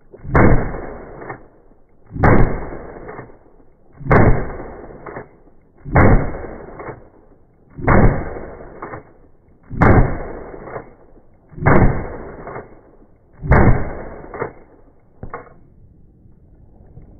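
Century C308 semi-automatic rifle in .308 firing eight single shots at an even pace of about one every two seconds, each report rumbling away over about a second. A smaller, shorter report follows near the end.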